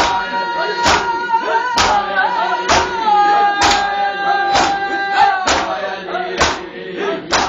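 Mourners chanting a noha with matam: bare hands slapping bare chests in unison, about one beat a second, under a voice holding long sung notes.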